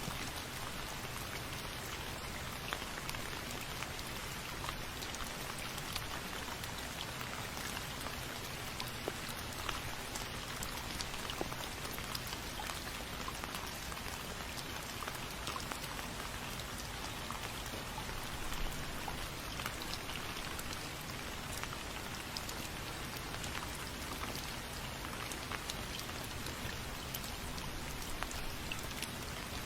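Steady rain falling and pattering on a surface, with many small distinct drop ticks over an even hiss.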